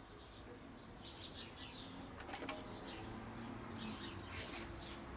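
Failed Deye SG04LP3 hybrid inverter giving two sharp clicks in quick succession about two and a half seconds in, instead of turning on. Birds chirp in the background.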